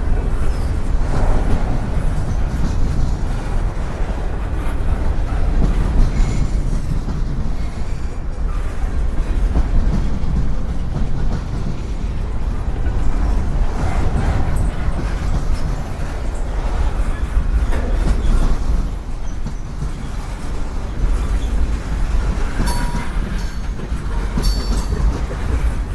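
Freight cars of a Norfolk Southern manifest train rolling past: a steady low rumble of steel wheels on rail, with clacking over rail joints and a brief high wheel squeal near the end.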